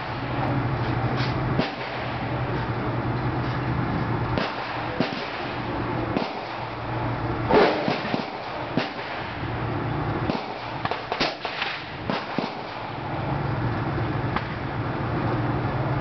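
Gunshots on a shooting range: sharp cracks at irregular intervals, the loudest about halfway through, over a steady low hum.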